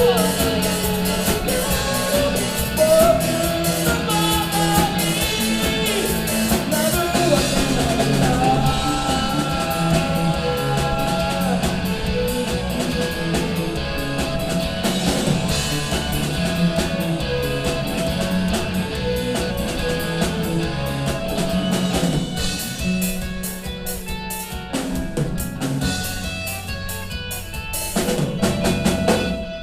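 Live rock band of guitars, bass and drum kit playing the closing bars of a song. The band hits a final accent near the end, and the music then cuts off.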